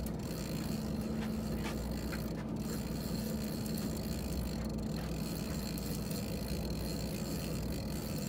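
Steady drone of a fishing boat's engine at sea, with wind and water noise.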